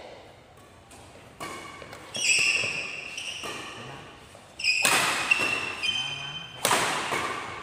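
Badminton rally: rackets strike the shuttlecock in a handful of sharp smacks, the loudest two about two seconds apart in the second half. Short, high squeaks, likely court shoes on the wooden floor, follow the hits, and the sound rings in a large hall.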